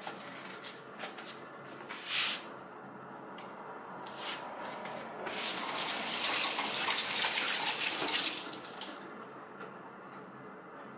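Kitchen tap running for about three and a half seconds, water splashing into a stainless steel sink as a tomato is rinsed under it. A few light knocks and handling sounds come before it.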